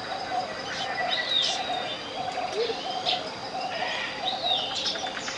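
Tropical jungle ambience: several birds calling with swooping, whistled calls, and a short call repeating about twice a second, over a steady low pure tone layered in at 528 Hz.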